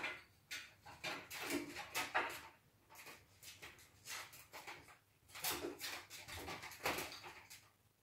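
Miniature dachshund puppies scuffling in play: a run of irregular scrabbles, scrapes and bumps, busiest about a second in and again from about five to seven seconds in.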